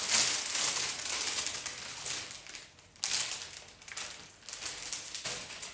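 Crinkling and rustling of wrapping being handled as cut flower stems are taken up: a dense crackle of small rustles, in two spells, the second starting abruptly about three seconds in.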